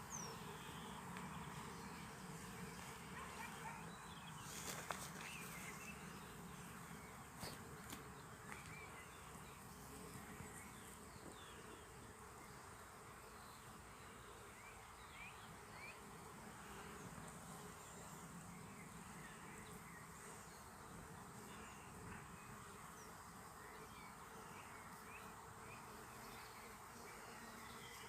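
Faint outdoor nature ambience of buzzing insects, with scattered short high chirps.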